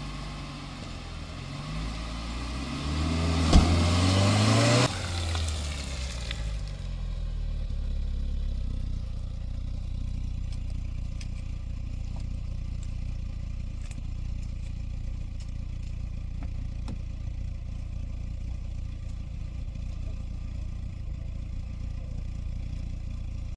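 A motor vehicle engine revving up, its pitch rising over the first few seconds with a loud rushing noise and a sharp knock, then settling into a steady low running drone.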